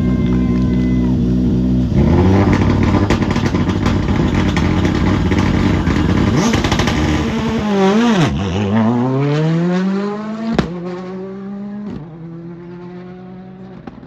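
Rally car engine held at high revs on the start line, then launching at full throttle about two seconds in. It accelerates hard, the pitch dropping and climbing again at each gear change, with a sharp bang partway through. The sound fades as the car pulls away up the road.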